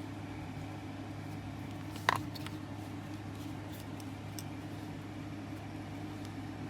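Steady low mechanical hum, like a fan running, with a single sharp click about two seconds in.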